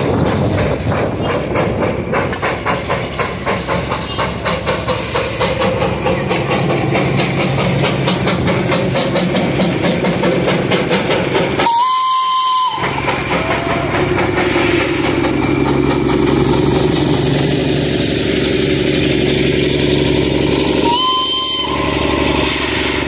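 Darjeeling Himalayan Railway narrow-gauge steam locomotive chuffing in a quick, even rhythm, with two short whistle blasts about nine seconds apart. In the second half a steadier low engine drone sets in as a diesel locomotive runs past.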